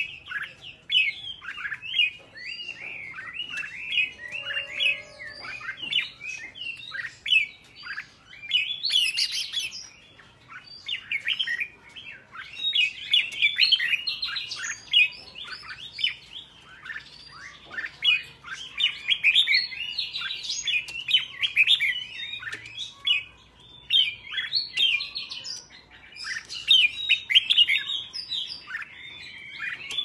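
Red-whiskered bulbul song: a near-continuous run of short, quick whistled phrases, the wild-style 'double-note' song that bulbul keepers play to train caged birds, with brief lulls about ten seconds in and again a little past halfway.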